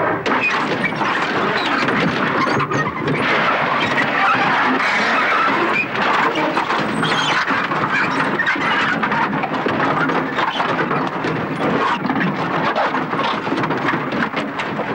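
A Land Rover's metal body crunching and scraping as a cow elephant shoves and tusks it. The sound is loud and unbroken, a dense crackle of scrapes.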